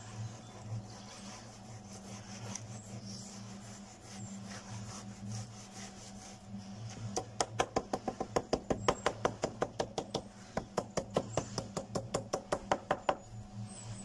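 Timber screed board tapped rapidly on a freshly poured concrete slab: a fast, even run of sharp wooden knocks, about six a second, starting about halfway through and lasting some six seconds, as the wet concrete is tamped level.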